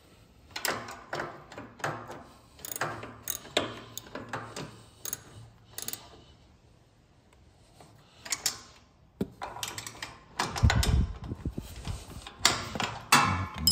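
Socket ratchet clicking in short strokes as a 12 mm nut is tightened onto a bolt, with a box wrench clinking on the bolt head. It goes quiet for a couple of seconds midway, then heavier knocks and thuds of handling come near the end.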